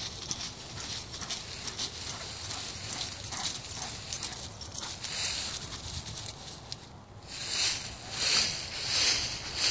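Dry fallen leaves crackling and rustling under a dog running and bounding through them. Near the end the rustling turns into a rhythmic swishing about twice a second.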